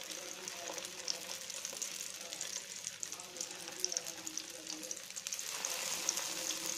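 Bathua kebab patties sizzling as they are laid one by one into hot oil in a frying pan to shallow-fry, a crackling hiss with a few sharper pops. The sizzle grows louder near the end as more patties go in.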